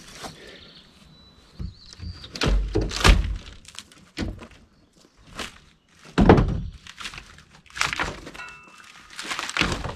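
Old plywood RV flooring being pried and broken up: a series of irregular heavy thunks with cracking of wood, the loudest about six seconds in.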